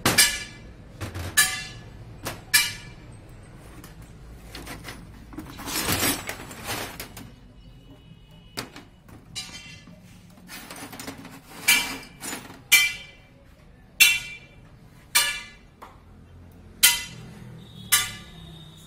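Sharp metallic clinks and knocks, about a dozen spread through, from the steel parts and hand tools of a Mahindra NGT 530 gearbox being handled and set down on a steel workbench during assembly, with a longer clatter about six seconds in.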